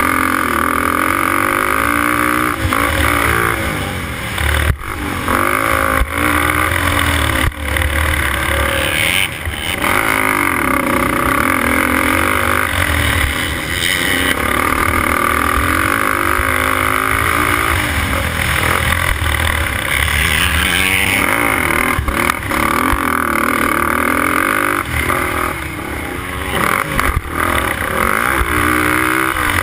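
Motocross racing quad's engine under race throttle, heard from the rider's helmet camera: its pitch climbs and drops again and again, with a few short dips where it comes off the throttle.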